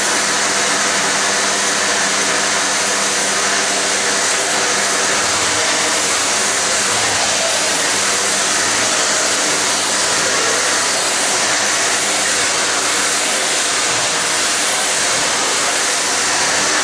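Bosch BGS52200GB bagless vacuum cleaner's 2200-watt motor running steadily at a high suction setting, a loud even rushing whir with a faint steady hum under it.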